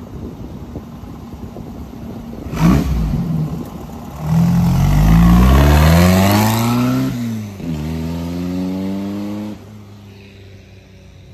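Rat-rod VW Beetle's engine idling, blipped sharply once, then revving hard as it pulls away: the note climbs, drops at a gear change and climbs again, then cuts back suddenly and fades as the car drives off.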